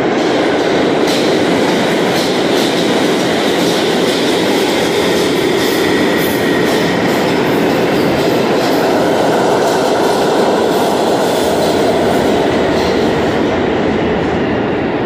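New York City subway train running through an underground station on the express track, passing without stopping: a steady, loud sound of steel wheels on rail with rapid clicks over the rail joints.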